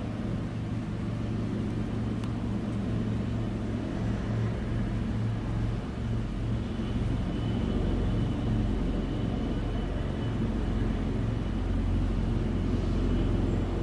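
AgustaWestland AW159 Wildcat helicopter's twin turboshaft engines and rotors running as it comes in to land and then taxis: a steady low rumble, with a faint high turbine whine joining about seven seconds in.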